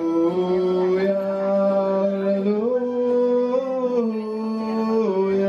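Singing: a voice holding long notes and sliding smoothly from one pitch to the next, with a quick rise-and-fall flourish just after the end.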